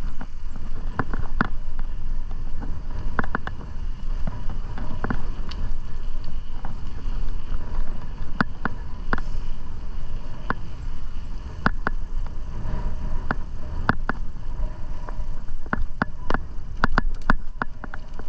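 Bicycle riding on a paved trail: a steady low rumble of tyres and wind, with scattered sharp clicks and rattles that come more often near the end.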